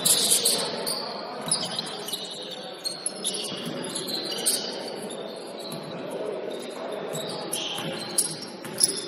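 Indoor basketball game sounds: sneakers squeaking sharply on the court again and again, and a basketball bouncing a few times with sharp thuds, over a low murmur of players' voices in a large hall.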